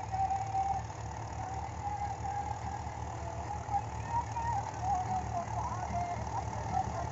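Tractor diesel engines running steadily under field work, among them a Ford 7610's four-cylinder diesel pulling a laser land leveller, a low pulsing throb with a wavering higher whine above it.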